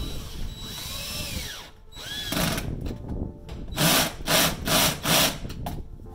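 Cordless drill driving a small lug bolt through a washer into a pickup truck bed's tie-down point, run in short bursts on the trigger. Its whine rises and falls about a second in, then comes a quick run of loud, short bursts in the last few seconds.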